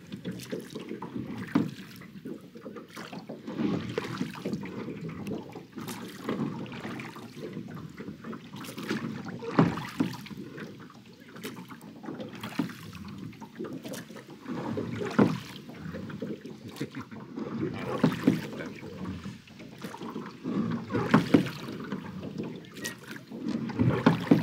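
Small rowing boat being rowed: oars dipping and splashing in the lake water, with sharp knocks, a stroke every few seconds in an uneven rhythm.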